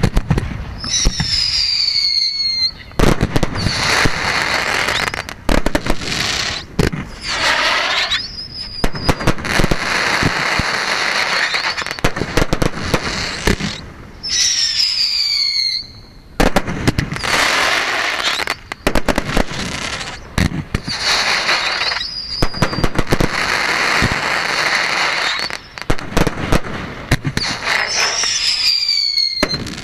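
Fireworks display: a dense run of bangs and crackling, with shrill whistles cutting through several times, most of them falling in pitch and one rising.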